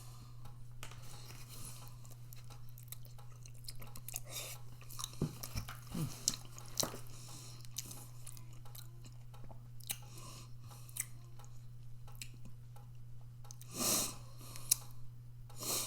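A person chewing soft food (microwaved cheese ravioli) close to the microphone: irregular wet mouth clicks and smacks over a steady low electrical hum, with a louder breathy burst near the end.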